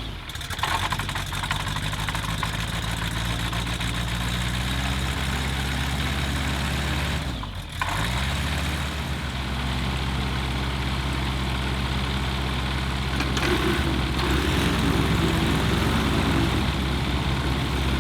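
An engine idling steadily. Its pitch dips briefly and recovers about seven and a half seconds in, and a higher engine note joins about thirteen seconds in.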